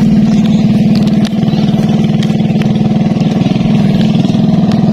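A small engine running steadily at constant speed, a low drone with a fast, even pulse.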